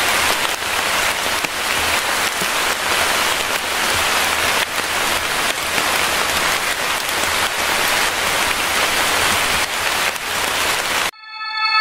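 Steady heavy rain, a dense even hiss. It cuts off abruptly near the end, where a synthesized musical tone begins.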